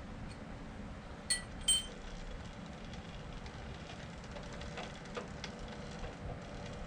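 Two light metal-on-metal clinks with a brief ring, a moment apart, about a second and a half in, over a steady low machine-shop hum, with a few faint ticks later on.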